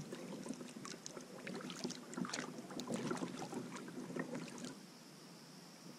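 Paddles dipping and splashing in water, with irregular drips and small knocks; the splashing stops about five seconds in.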